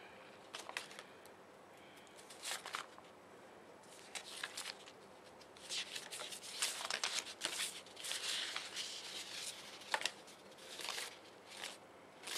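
Sheets of paper stickers being handled and flipped through, rustling and crinkling in irregular bursts, with a sharp tap about ten seconds in.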